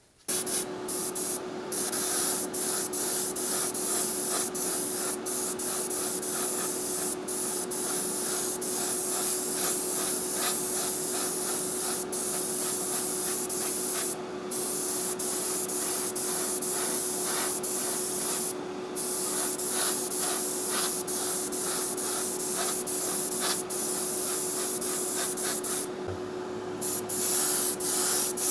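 Airbrush spraying in a long hiss that stops briefly about three times, over a steady hum.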